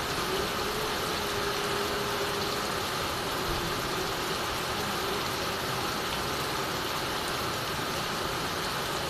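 Heavy rain falling steadily on a clay-tiled roof and pouring off the eaves onto the ground: an even, unbroken hiss.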